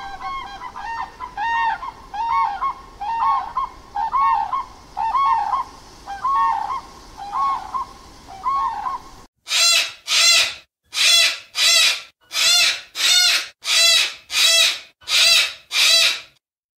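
Sandhill cranes calling: a run of rolling, arched calls, about two a second. About nine seconds in this gives way to a sulphur-crested cockatoo's harsh screeches, louder, about ten in a row, each under half a second.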